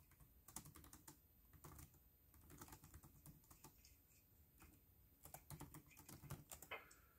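Near silence, with a few faint, scattered clicks and taps, more of them near the end.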